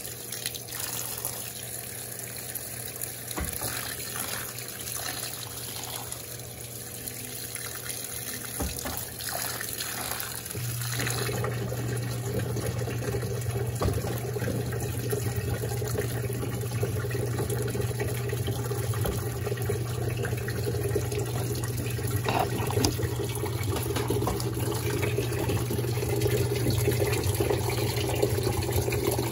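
Electrolux Turbo Compacta 7 kg top-loading washing machine filling with water, the water running steadily into the drum over a low machine hum; about ten seconds in the hum grows louder and fuller.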